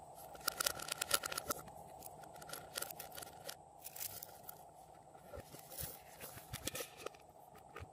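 Crinkly crackling and clicking of a stiff plastic boot-shaped container being handled and squeezed by hand. The crackling comes in several short bouts, the loudest near the start.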